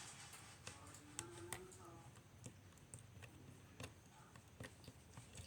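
Faint, irregular clicks and taps of a plastic stirrer working sticky slime in a small plastic container, as glue and activator are mixed until the slime clumps.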